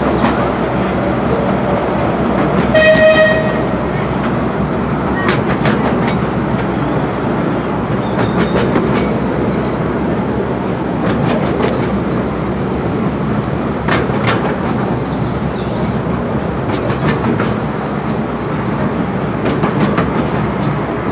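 A 15-inch gauge miniature railway train running, heard from an open passenger carriage: a steady rumble and rattle of wheels on the track. About three seconds in, the locomotive gives one short high toot, and a few sharp clicks come later.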